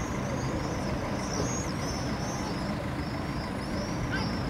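Steady low rumble of city traffic, with many short, high chirping bird calls repeating over it.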